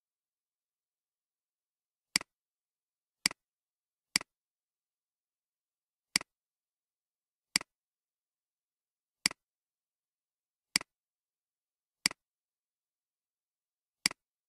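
Computer mouse clicks, nine single sharp clicks at uneven intervals of one to two seconds, with dead silence between them.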